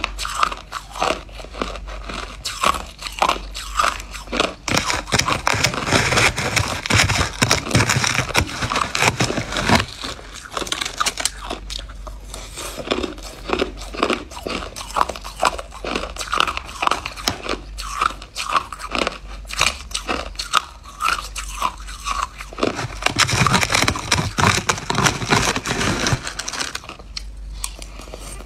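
A person biting and chewing a mouthful of crushed ice, close up: a rapid, continuous run of sharp crunches with a few brief pauses.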